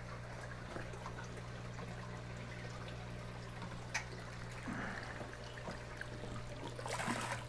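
Faint trickle of aquarium water running through a gravel-vacuum siphon hose into a bucket, over a steady low hum. A single click about four seconds in.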